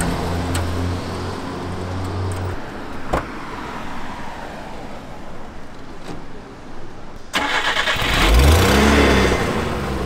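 A click or two from the truck's side-panel lock, then the small box truck's engine is started about seven and a half seconds in: a sudden burst of starter noise, the engine catching and briefly revving, then running.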